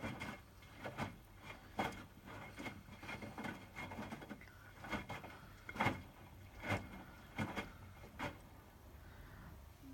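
Hotpoint WMFUG 942 washing machine drum tumbling a wet bed-and-bath load during the wash, the laundry dropping and sloshing in soft thuds roughly a second apart, easing off near the end.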